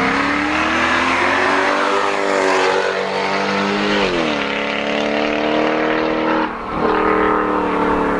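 Car engine under hard acceleration, its pitch climbing steadily, with a quick drop in pitch about four seconds in and a short dip in level and pitch near the end as it shifts up a gear.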